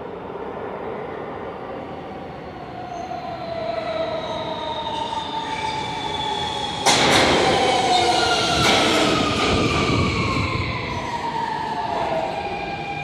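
An F train of R160 subway cars pulling into an underground station and braking, with a whine of several tones falling in pitch as it slows. The rush and rumble of wheels on rail jump up suddenly about seven seconds in as the cars run past close by.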